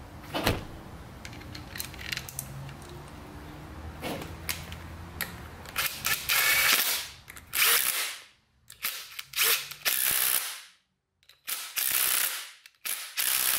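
Cordless impact driver hammering the camshaft timing-gear bolts tight on an LS V8 block, in a string of short bursts that start about halfway through. Before that, only light clicks of parts being handled.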